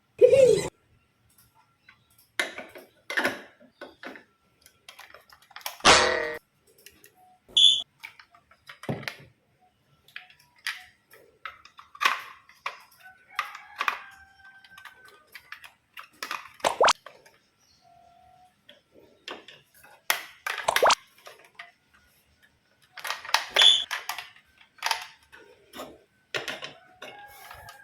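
Toys being handled and set down: scattered irregular clicks and clacks, with a short high ping about eight seconds in and another near the end.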